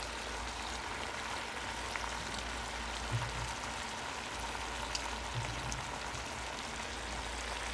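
Chicken thighs and legs with sliced calabacitas frying in an enamelled cast-iron Dutch oven: a steady sizzle with a few faint pops.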